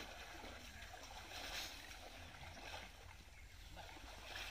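Faint sloshing and swishing of pond water stirred by people wading and a net being dragged through it, a little louder about a second and a half in and again near the end.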